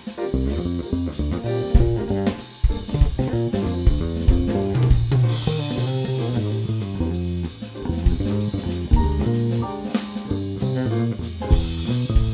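Instrumental jazz from a small band: guitar and bass guitar over a drum kit, with cymbals growing louder about halfway through.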